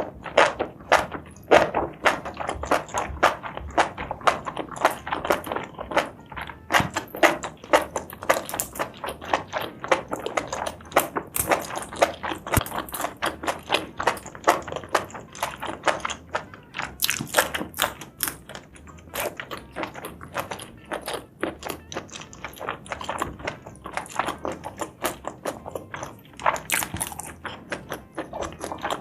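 Close-miked eating sounds: a person chewing spicy seafood and mushrooms, with quick irregular clicks and crunches several times a second.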